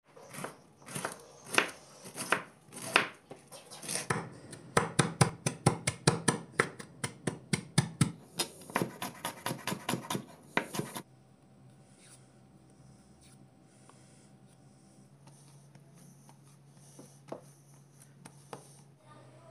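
Kitchen knife chopping vegetables on a wooden cutting board: a few slow cuts through cabbage, then fast, even chopping of red pepper. About eleven seconds in the chopping stops, leaving a low steady hum with a couple of light taps.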